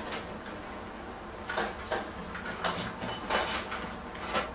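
Rummaging among boxes and papers on top of a cabinet: a series of short scraping and rustling sounds as things are shifted and handled, most of them in the second half.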